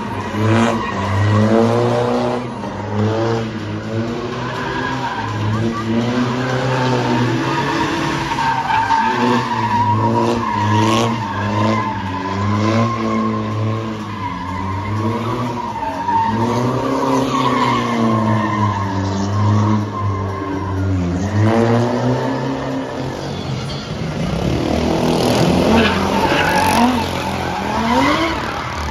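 Car engines revving hard, their pitch climbing and falling again and again, with a high tyre squeal held through the middle stretch.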